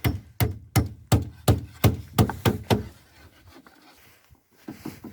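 A fast run of sharp, evenly spaced knocks, close to three a second, like repeated hammer or tool blows at a construction site. The knocks stop about three seconds in, and fainter ones start again near the end.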